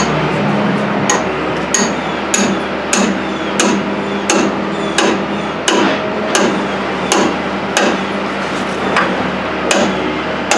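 Hammer blows on the steel steering knuckle of a 2001 Dodge Dakota, struck to free it from the truck. There is a steady rhythm of about one and a half ringing metal strikes a second.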